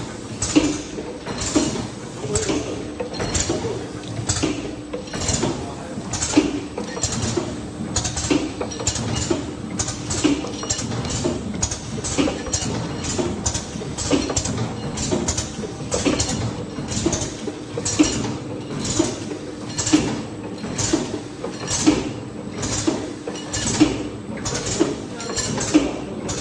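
SJ-Y1 liquid filling and packaging machine running through its repeating cycle: a steady hum with regular mechanical clacks, roughly one a second, and lighter clicks between them.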